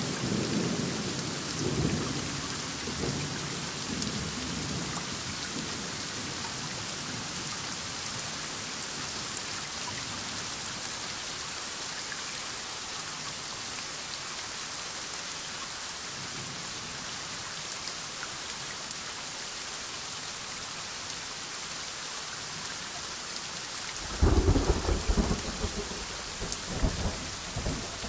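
Heavy rain falling steadily during a thunderstorm, with thunder rumbling and fading away over the first few seconds. Near the end comes a sudden, loud clap of thunder that rumbles on in rolls.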